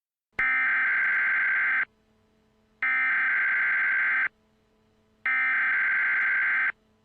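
Three bursts of Emergency Alert System SAME header data: a harsh, buzzing digital screech, each burst about a second and a half long with about a second between. It is the coded header that opens an emergency alert.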